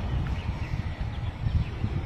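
Low, gusting wind rumble on the microphone, with a few faint bird chirps about a second in.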